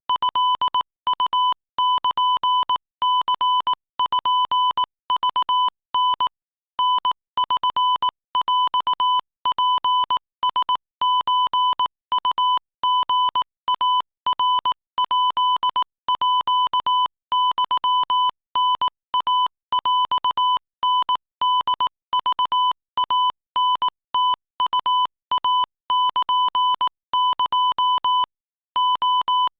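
Morse code sent at 22 words per minute as a steady high beep keyed on and off: quick runs of short dots and longer dashes, with brief gaps between letters and a longer silence near the sixth second.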